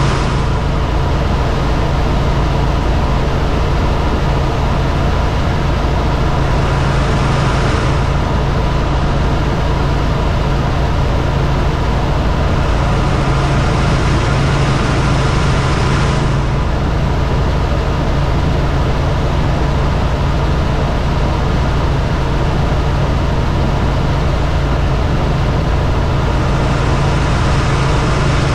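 Helicopter in flight: steady, loud engine and rotor noise with a constant low hum that does not change in level.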